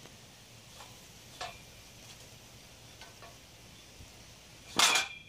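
A few faint metallic clicks, then near the end one loud clank of steel greenhouse tubing, with a brief ring after it.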